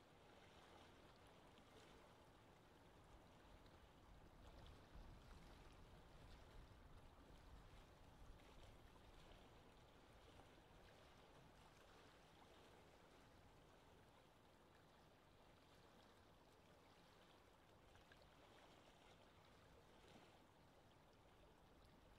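Faint, steady ambience of lake water and gentle wind, swelling slightly about four to nine seconds in.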